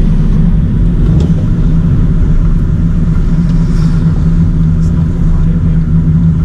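Volkswagen Saveiro pickup's engine and exhaust heard from inside the cabin while driving: a loud, steady low drone.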